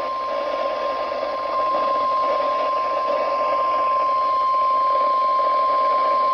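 NOAA Weather Radio warning alarm: one steady, unbroken single-pitch tone signalling a severe thunderstorm warning, heard over the hiss of radio reception static.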